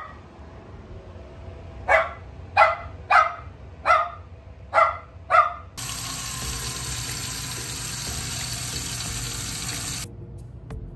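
A cockapoo puppy barks six times in quick, sharp yaps. Then a tap runs steadily into a sink, splashing over a plastic aquarium filter cartridge and its filter pads for about four seconds, before cutting off suddenly.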